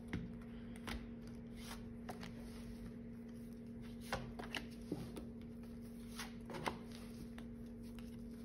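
Oracle cards being drawn one at a time from a fanned-out deck and laid down on a cloth: soft, irregular card taps and slides, over a faint steady hum.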